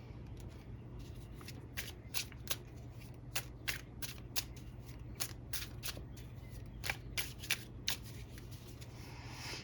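Tarot cards being shuffled by hand: a run of short, crisp card snaps, a few a second, lasting several seconds.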